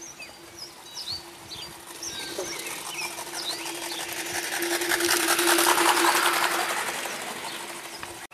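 Live-steam garden-scale A4 Pacific locomotive running past, its rapid exhaust chuffs building to their loudest about five or six seconds in and then fading, over a steady hum. Birds chirp in the first couple of seconds.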